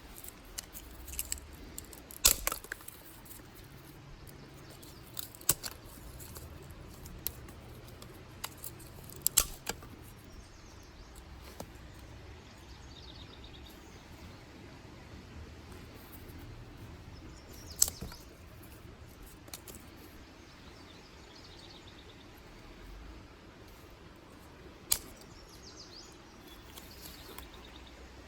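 Dry sticks and twigs snapping, a series of sharp, irregularly spaced cracks. The loudest come about two seconds in and near ten, eighteen and twenty-five seconds. Faint bird chirps sound between them.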